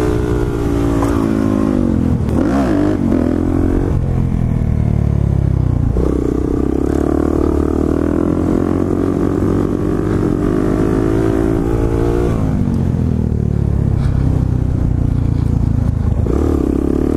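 Motorcycle engine running while riding. The revs dip and climb a few seconds in, hold steady through the middle, drop off about twelve seconds in and pick up again near the end, over a steady low rumble of wind and road.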